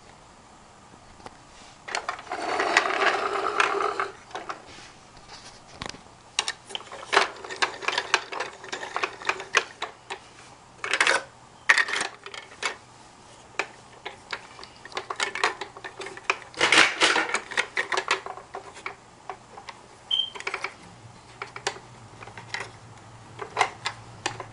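A battery-powered toy drill whirring in a few short bursts as it drives plastic bolts in and out, among sharp clicks and clatter of plastic toy parts being handled.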